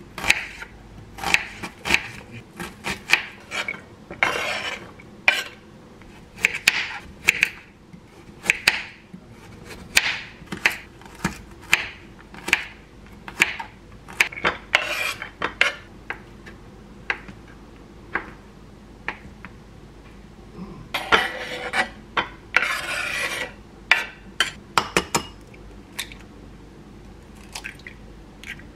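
Chef's knife chopping onion and carrot on a wooden cutting board: irregular sharp knocks of the blade hitting the board, with a couple of longer scraping noises, one a few seconds in and one about two-thirds of the way through.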